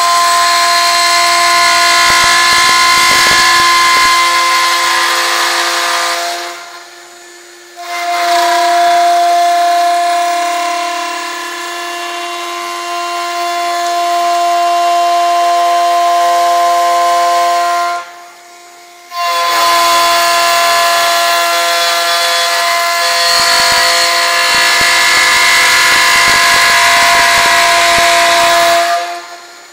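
Cosen CNC wood lathe with a router spindle cutting flutes into a spinning wooden stair baluster: a steady, high-pitched machine whine over a cutting hiss. It breaks off for about a second twice, about a quarter and about two-thirds of the way through, then carries on.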